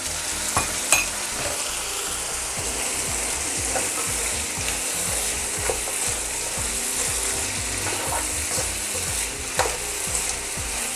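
Sliced vegetables sizzling as they stir-fry in a non-stick wok, a spatula stirring and scraping through them. A few sharp clicks come as the spatula knocks the pan, once about half a second in, again about a second in, and once near the end.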